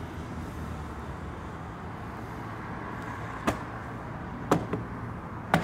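A Ford Raptor's dust-clogged pleated engine air filter being knocked against a truck tire three times, about a second apart, to shake out packed desert dust and mud, over steady background noise.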